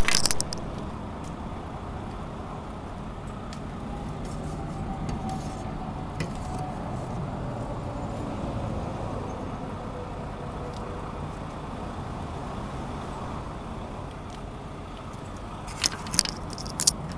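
Steady low rumble of vehicle noise, with a sharp knock right at the start and a few quick clicks and knocks near the end.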